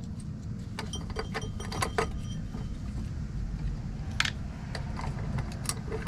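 Scattered metal clicks and taps of hand tools working apart scrap metal parts, a few sharper ones about two and four seconds in, over a steady low rumble.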